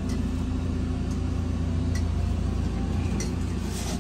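Steady low rumble, with a few faint ticks over it.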